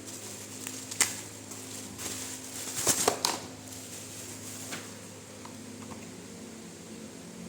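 Scattered rustles and clicks of packaging being handled, with a cluster of crinkling about three seconds in, over a low steady hum.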